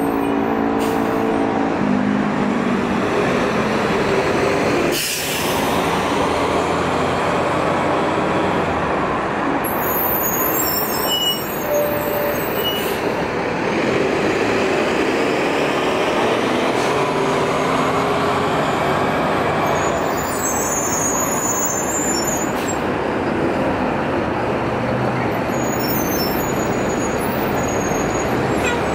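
City transit buses running and pulling through a bus station, their engines and tyres making a steady, dense noise. About five seconds in comes a short, sharp hiss of air brakes being released.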